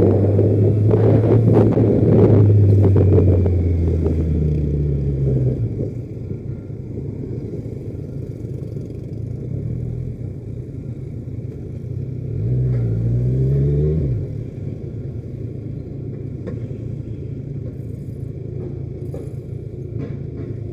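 Motorcycle engine heard through a helmet-mounted camera, pulling strongly at first and easing off about five seconds in, then running low and steady in slow traffic, with one short swell of engine sound a little past halfway.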